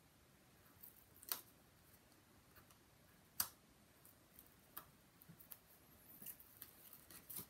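Near silence broken by a few faint, short clicks and ticks of fingers handling cardstock and double-sided tape. The two sharpest come about a second in and about three and a half seconds in, with softer ones near the end.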